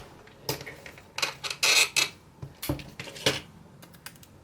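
Hands working on a laptop: a string of sharp clicks and clatters of small hard parts, with a brief crinkly rustle in the middle.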